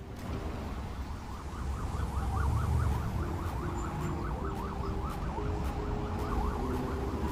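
Emergency vehicle siren in a fast yelp, rising and falling about four times a second, over a low traffic rumble.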